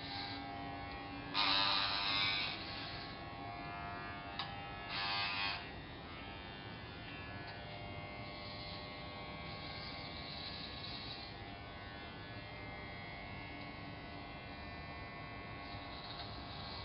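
Corded electric hair clippers buzzing steadily while shaving a head, with two brief louder bursts, about a second and a half and five seconds in.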